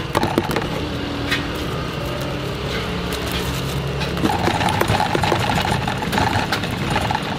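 Small engine running steadily close by, with a higher pulsing note joining about four seconds in, over light clinks of a metal spoon against a plastic tub.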